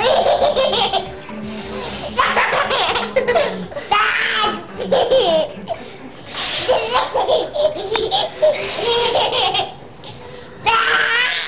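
Baby belly-laughing in repeated bursts, about half a dozen bouts broken by short pauses.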